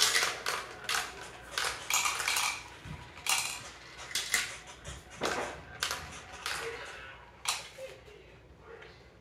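Marbles clicking and rattling down a plastic marble run, rolling along the rails and spiral tracks with irregular sharp clicks. The clicks come thick at first and thin out, growing quieter toward the end.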